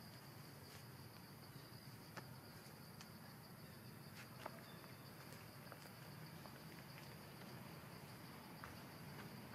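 Faint, steady high-pitched drone of insects in the forest, with a few faint scattered clicks.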